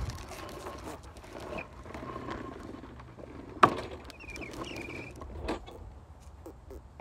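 Faint handling and rustling noises with one sharp knock about halfway through; no engine starts or runs.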